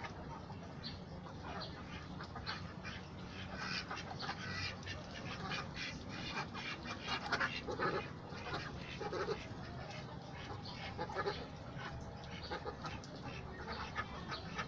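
Domestic ducks in a pen quacking and chattering, many short calls overlapping, busiest around the middle.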